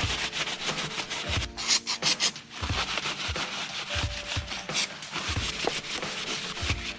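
Cloth rag rubbing and scrubbing over a motorcycle's frame, wiring and engine covers, a repeated scratchy swish with each stroke.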